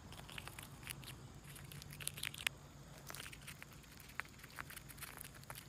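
Faint, scattered clicks and crackles of a chipmunk handling and nibbling nuts held in a hand, over a low steady hum.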